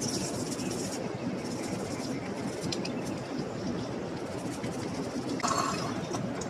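Small brush scrubbing a greasy metal plate from a Pfaff 1245 sewing machine in short strokes, over a steady background noise, with a brief louder scrape about five and a half seconds in.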